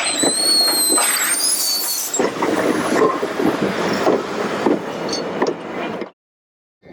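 A train moving on rails: a high-pitched squeal of steel wheels or brakes for about the first two seconds, then rumbling and clattering rolling stock with irregular knocks. The sound cuts off about six seconds in.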